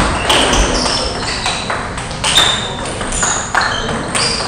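Table tennis balls clicking sharply and irregularly off bats and tables as rallies are played on several tables at once. The clicks come every fraction of a second, some with a short high ping, echoing in a large sports hall.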